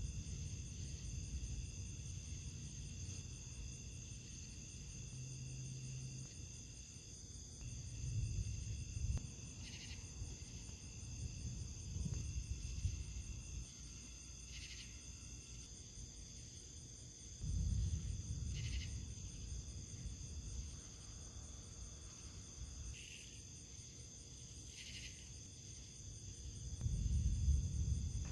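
Steady high-pitched insect chorus, like crickets trilling, over a low rumble that rises and falls. About five short, sharper sounds stand out over the chorus.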